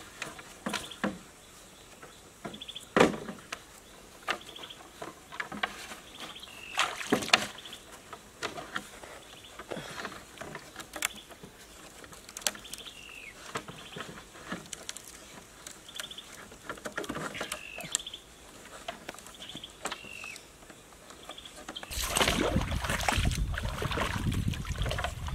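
Scattered knocks and clatter of bamboo poles being handled on a lashed bamboo raft, with short high chirps in between. About 22 seconds in, water sloshing and splashing takes over as someone wades in the shallows beside the raft.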